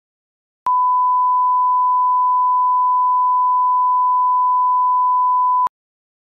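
Steady 1 kHz reference test tone, the kind played with colour bars at the head of a video. It is a single unchanging pitch that starts abruptly about a second in and cuts off cleanly about five seconds later, with a slight click at each end.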